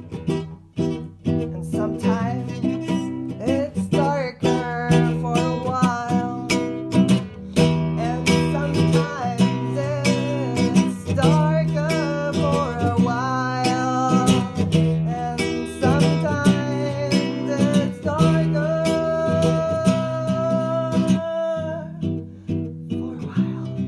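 Background music on acoustic guitar: strummed chords with a melody line over them and a long held note near the end.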